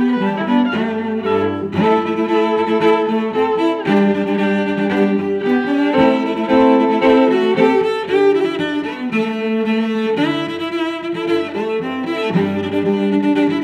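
Background music led by bowed strings, playing sustained notes that change every second or so.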